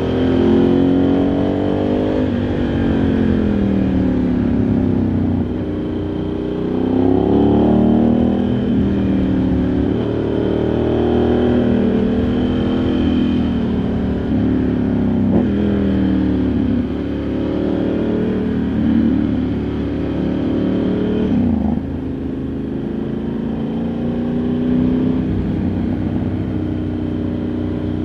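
Ducati Multistrada 1100S's air-cooled L-twin engine heard from on board while riding, its revs climbing and falling back over and over as the rider accelerates, shifts and backs off the throttle.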